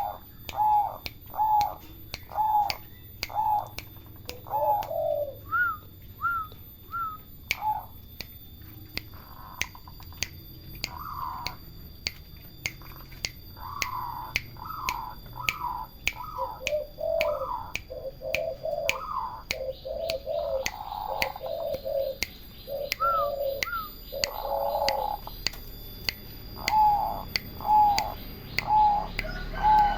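Turtle doves cooing in runs of short, repeated, arched notes, at times two birds overlapping at different pitches. A sharp click comes at regular intervals.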